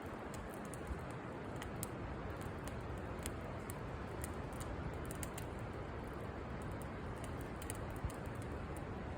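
Campfire crackling: irregular sharp snaps and pops of burning wood, several a second, over a steady low rushing noise.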